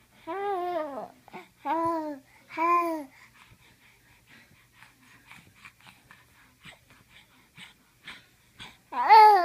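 Baby babbling: three short, rising-and-falling coos in the first three seconds, then a louder coo near the end.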